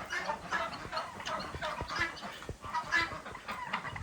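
A flock of farmyard poultry calling all at once, many short overlapping calls, with a few soft knocks among them.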